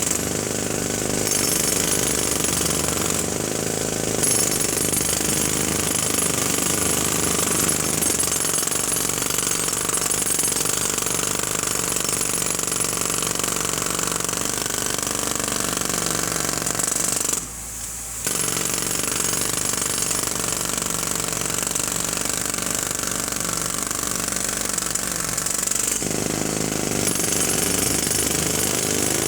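Jackhammer hammering loudly and continuously, with one brief pause about two-thirds of the way through.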